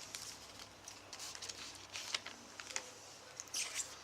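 A foil trading-card pack being handled and opened: soft crinkling and small clicks, with a louder stretch of crinkling about three and a half seconds in.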